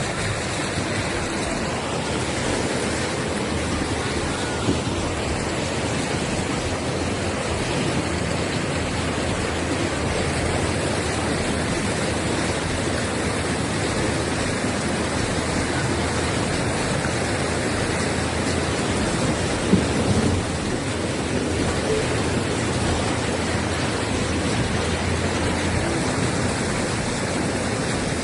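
Steady rushing noise of water, with two brief knocks, one about five seconds in and one about twenty seconds in.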